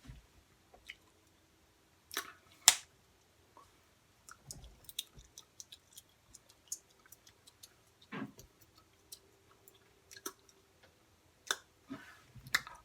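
Scattered small clicks and wet smacking sounds, like mouth or chewing noises close to the microphone, with a few louder sharp smacks, two of them about two and a half seconds in.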